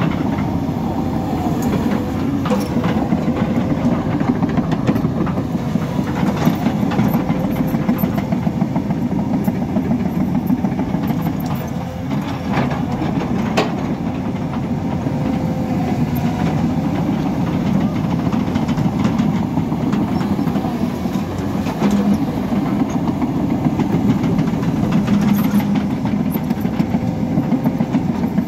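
Hyundai crawler excavator's diesel engine running steadily, with a thin steady whine above the deep rumble and a few short knocks.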